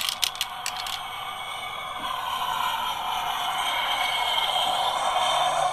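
Battery-operated M&M's airplane candy dispenser playing its jet take-off sound effect through the small speaker under its wing: a rushing jet noise that swells gradually, after a few quick clicks at the start.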